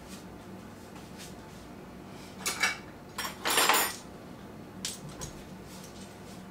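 Metal measuring spoons on a ring clinking and clattering as they are picked up: two short bursts of jangling a little past the middle, then a few light clicks.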